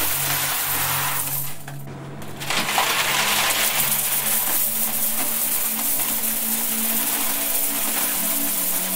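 A stream of coins pouring into a metal box, a continuous dense clinking that thins out briefly about two seconds in and then resumes. A few steady low tones sound underneath.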